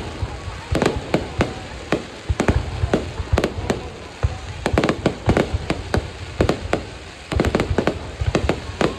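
Fireworks going off in rapid succession: many sharp bangs and cracks, several a second, over a low rumble, easing briefly twice before picking up again.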